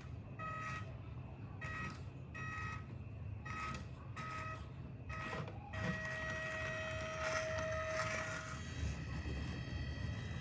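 Electronic beeper sounding a string of short, reversing-style beeps, then one longer steady tone of about three seconds, over a low continuous rumble.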